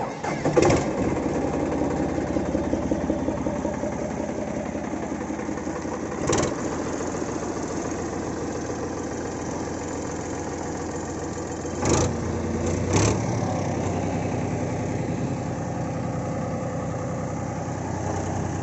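Powertrac Euro 45 Plus tractor's diesel engine catching at the start and then running steadily at idle, with three sharp knocks: about six seconds in, and twice around twelve and thirteen seconds in.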